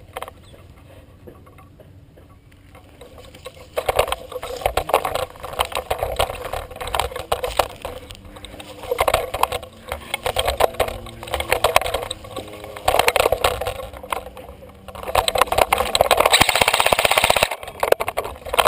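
Movement noise from a player advancing: footsteps crunching on dry leaves and sandy ground and brush rustling against him, starting about four seconds in and coming in uneven clumps, with a louder, hissing scrape near the end.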